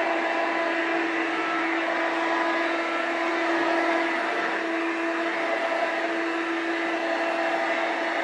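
1988 Hoover Elite 200 bagged upright vacuum cleaner running steadily, its motor giving an even whirring hum. The machine is described as not that loud; it is due for a new drive belt.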